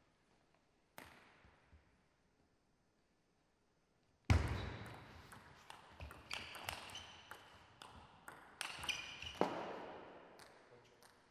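Table tennis rally: the ball clicks sharply off bats and table in quick succession, with a few short squeaks. It opens with a heavy thud about four seconds in, the loudest sound.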